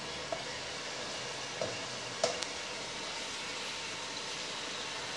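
Chicken wings sizzling steadily in a wok, with a few light knocks of a plastic spatula against the pan in the first half.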